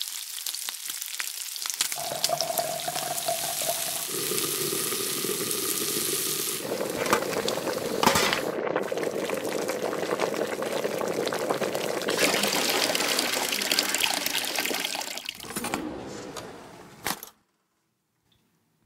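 Cooking sounds in stainless steel pots: food sizzling as meat sears, then water bubbling and splashing as food goes into the pot. There are a few sharp clinks along the way, and the sound cuts off suddenly near the end.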